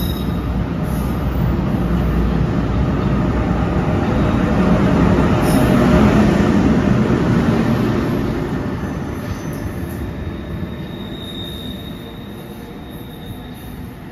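NJ Transit electric push-pull train of Multilevel coaches departing, with its ALP-46 electric locomotive at the rear. The cars roll past and gather speed, and the sound swells to its loudest as the locomotive goes by about six seconds in, then fades as the train pulls away. A faint high squeal comes in near the end.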